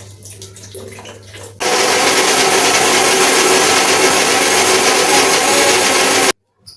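Electric mixer grinder running at a steady speed, grinding soaked moong and urad dal with a little added water into a coarse batter. It starts about a second and a half in, after a few faint clicks and handling sounds, and cuts off abruptly near the end.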